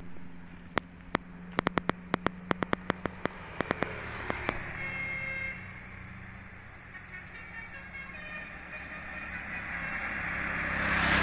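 Telolet horn of the Basuri V3 type: a quick run of sharp clicks over a steady low hum, then brief horn tones about five seconds in. A broad rushing noise swells to its loudest near the end.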